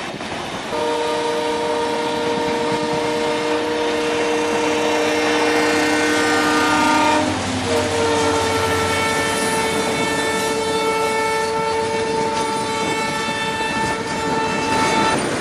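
Multi-tone train horn sounding two long blasts of about six to seven seconds each, the second starting just after the first stops.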